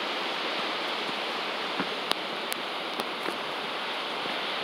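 Hurricane wind and rain, a steady rushing with a few faint sharp ticks.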